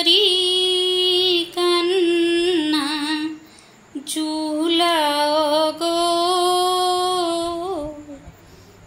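A woman singing a slow devotional Jhulana (swing-festival) song to Radha and Krishna, the word "Kishori" drawn out in long held notes with vibrato. There are two long phrases with a short break about three and a half seconds in.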